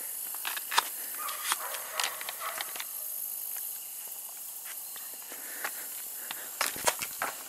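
Footsteps crunching and scuffing on loose gravel and broken rock while climbing down a slope, irregular steps with a few sharper ones near the end, over a steady high hiss.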